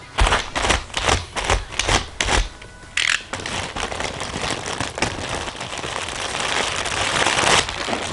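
Plastic courier mailer bag being slit with a box cutter and pulled open. A quick run of short scraping cuts is followed by a long crinkling rustle of the plastic that grows louder, then stops near the end.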